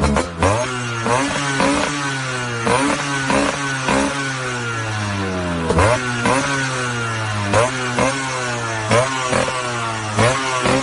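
Yamaha RX 135's single-cylinder two-stroke engine revved in quick throttle blips over and over, the pitch jumping up sharply and falling back toward idle each time.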